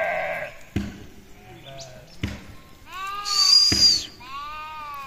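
Sheep bleating, a few wavering calls, the loudest about three seconds in. A high thin whistle-like tone sounds over them, and there are a few sharp knocks.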